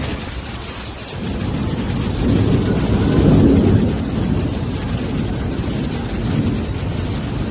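Violent rainstorm: heavy rain and strong gusting wind, with the gusts rumbling on the microphone. The noise swells to its loudest about three seconds in.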